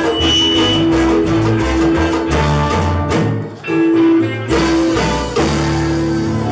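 Live salsa band playing, trombones holding long notes over bass and percussion. The music drops out briefly about three and a half seconds in, then comes back with short held horn notes.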